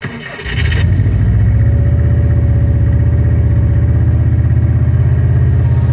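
LMTV military truck's diesel engine running steadily at constant speed, with a fast even firing pulse and a steady whine above it; it comes in about half a second in.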